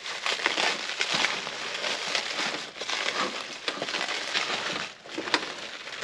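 Packaging crinkling and rustling as parts are unwrapped by hand, with many small crackles and clicks throughout.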